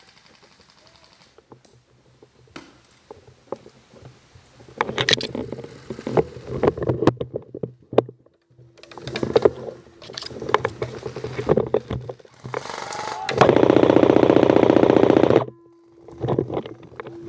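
Airsoft M4 electric gun heard through a camera mounted on it: scattered clicks and handling noise, then a loud full-auto burst of about two seconds near the end that stops abruptly.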